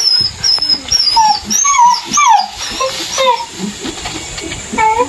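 A dog whimpering: a run of short, whiny cries that fall in pitch, with a last one near the end.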